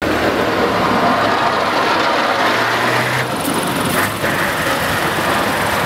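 Snowplough truck driving past close by, its heavy engine running with a steady low hum while the front plough blade pushes snow along the road with a continuous scraping rush.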